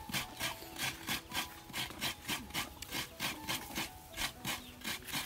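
Taro tuber scraped back and forth against an iron blade to peel off its skin, in quick, even rasping strokes.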